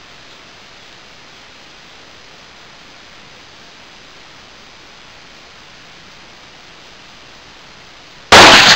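Steady hiss, then near the end a single very loud AR-15 rifle shot in .223.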